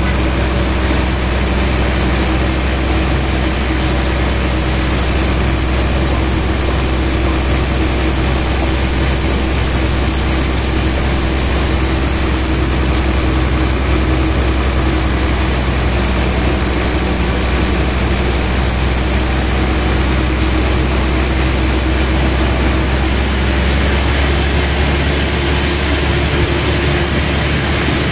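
Sawmill machinery running steadily: a loud, continuous engine-like noise with a low hum and no breaks.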